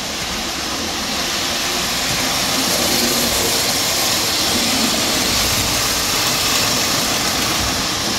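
O-gauge model train running on three-rail tubular track: a steady whirring rumble of motor and wheels with a hiss, growing a little louder over the first two or three seconds as it comes by.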